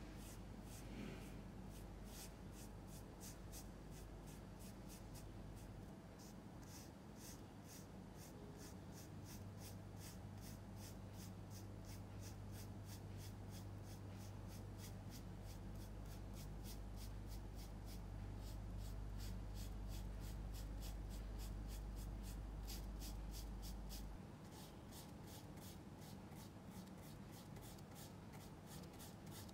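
Paintbrush scrubbing and blending oil paint on canvas in quick, regular back-and-forth strokes, a faint scratchy brushing sound, over a steady low hum.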